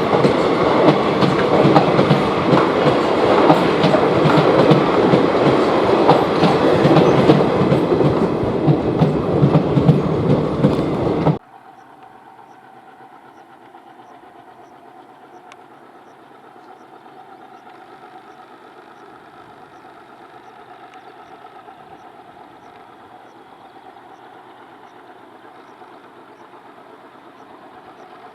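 Train running on the line, a loud rush with a rapid clickety-clack of wheels over rail joints, which cuts off abruptly about eleven seconds in. After that there is a much quieter steady hum with a faint tick about once a second.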